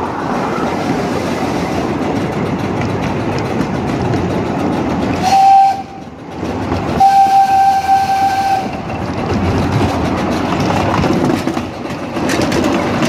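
Miniature steam locomotive running steadily along its track. Its whistle sounds twice about five seconds in: a short blast, then a longer one, each on a single steady pitch.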